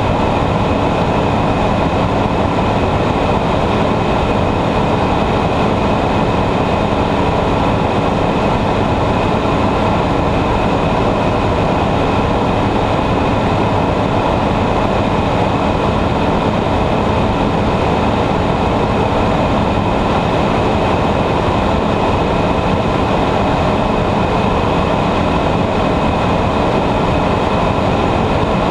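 Ultralight aircraft's engine and propeller running steadily in flight, heard from inside the cockpit: a loud, even drone with a few steady tones through it.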